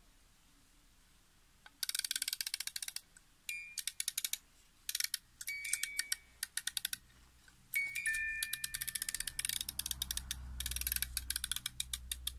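Clockwork music box movement being wound: rapid ratchet clicking in several bursts of about a second each, with a few single comb notes ringing out between them.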